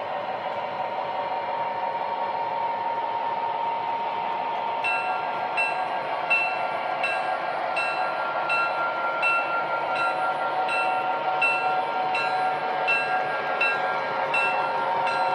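MTH O-gauge model diesel locomotive sound system (Proto-Sound 3.0) playing a steady diesel engine drone over the rumble of the running train. About five seconds in, a locomotive bell starts ringing, about once every three-quarters of a second.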